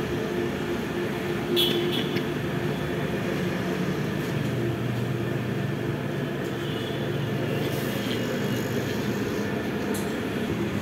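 Steady rumble of street traffic and running engines, with a few light metallic clinks about two seconds in and again near the end.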